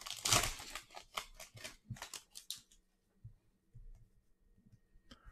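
Plastic wrapper of a football trading-card pack crinkling and tearing open: a quick run of sharp rustles over the first two and a half seconds, then near quiet with a few faint ticks.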